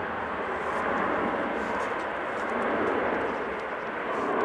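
Boeing 737-800's CFM56-7B turbofan engines at takeoff thrust during the takeoff roll: a steady rushing roar that swells and eases slightly.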